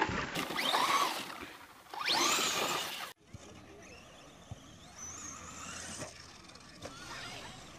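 Brushless electric motor of a Thunder Tiger Sparrowhawk XXT 1:10 RC truggy on a 3S LiPo whining as it revs up and down twice, then a sudden cut about three seconds in; after that the motor whine is fainter.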